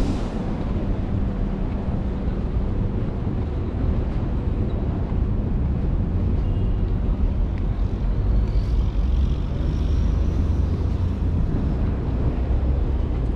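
Steady low rumble of distant vehicle traffic, with wind buffeting the microphone.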